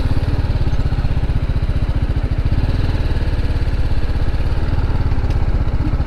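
Yamaha MT-15's single-cylinder engine running steadily at idle, close and loud, holding an even pitch throughout.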